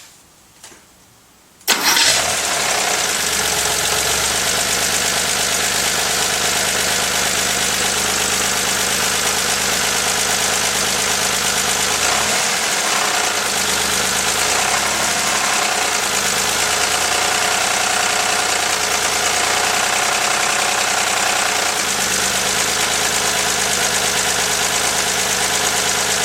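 1983 Porsche 911 SC's stock 3.0-litre air-cooled flat-six starting up about two seconds in and then idling, its speed dipping and rising briefly about halfway through. It is running with the noise its owner fears is a rod knock.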